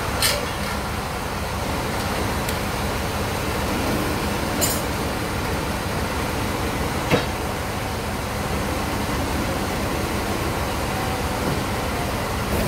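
Band sawmill running steadily, with a few sharp knocks, three of them spread through the sound.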